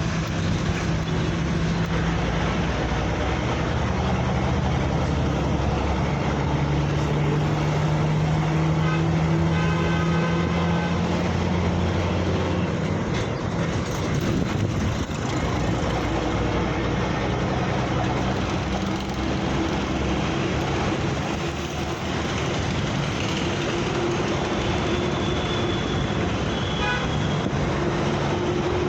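Road traffic: the steady noise of passing vehicle engines and tyres, with a horn sounding briefly about ten seconds in and a high horn tone held for a few seconds near the end.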